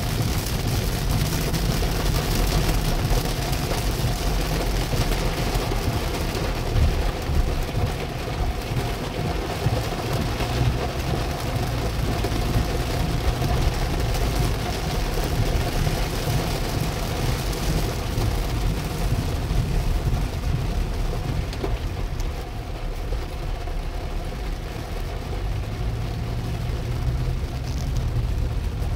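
Heavy rain hitting a car's roof and windscreen, heard from inside the moving car over the steady low rumble of the car on the road.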